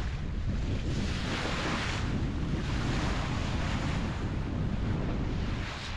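Wind buffeting the microphone over the rush of water along a sailing yacht's hull as she heels and drives through choppy sea, with spray hissing up and easing every second or two.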